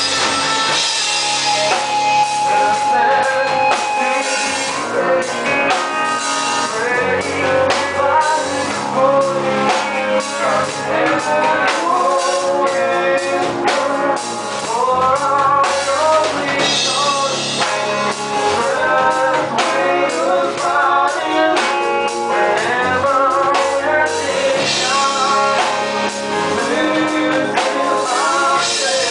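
Live rock band playing loud: electric guitars and drum kit, with a male vocalist singing over them.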